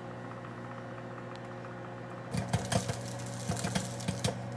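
Microwave oven running with a steady hum. About two seconds in, popcorn in a microwave popcorn bag starts popping: sharp, irregular pops over the hum.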